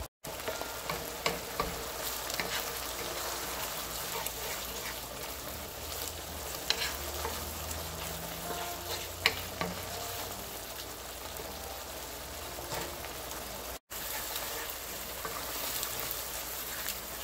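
Chopped onion, tomato and grated carrot sizzling steadily in a non-stick frying pan while a wooden spoon stirs and scrapes through them. A few sharp clicks of the spoon on the pan, the loudest about nine seconds in.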